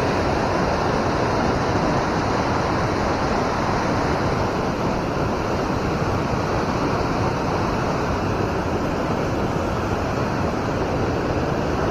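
Steady rush of flowing river water, an even noise that holds without change.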